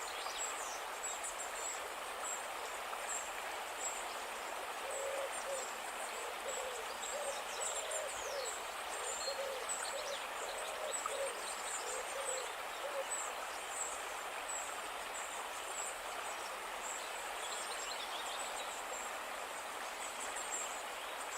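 A bird hooting: a run of about a dozen short low hoots, roughly two a second, from about five to thirteen seconds in. High-pitched chirping and a steady hiss of natural background noise run underneath.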